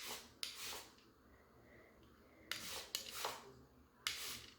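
Three pairs of short breathy puffs, like sniffs or breaths close to the microphone, about every one and a half seconds.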